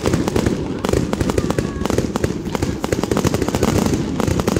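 Aerial fireworks bursting in quick succession: a dense, unbroken run of sharp pops and crackles, many per second.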